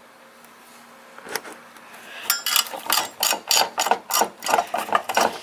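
Screwdriver backing out the screws that hold a CPU heat sink: a quick run of clicking, rasping strokes, about four a second, starting about two seconds in.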